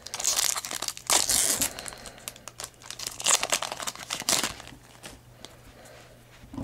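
Foil wrapper of a 2010 Topps Unrivaled football card pack crinkling and tearing as it is ripped open, in several bursts over the first four and a half seconds. After that it goes quieter, with a few light clicks as the cards are handled.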